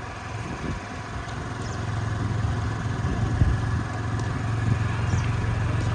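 Steady low rumble with a faint even hiss above it.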